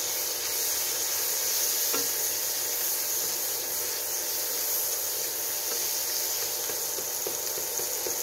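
Sliced red onions sizzling as they fry in butter and bacon fat in a nonstick wok. A silicone spatula stirs them, with a few light taps against the pan.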